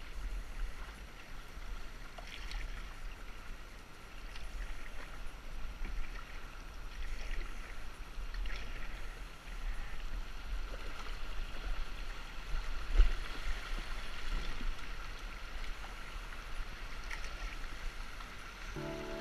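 Canoe moving through shallow river riffles: water rushing and splashing around the hull over a steady low rumble, with one loud knock about two-thirds of the way through. Music begins just before the end.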